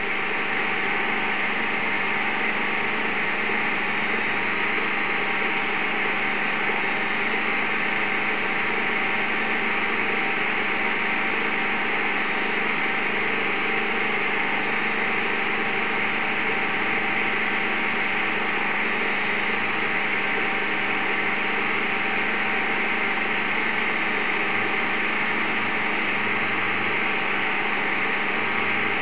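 Sewing-machine-type universal motor spinning a Nipkow disc at 1500 rpm in a mechanical television monitor: a steady whirring hum with a hiss over it, unchanging throughout.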